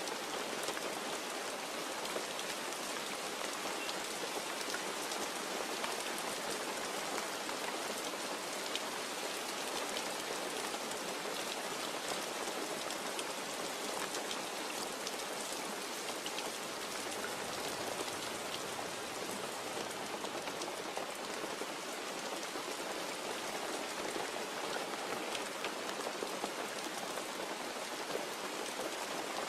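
Steady rain falling: an even hiss of rain with many small drop ticks, level throughout.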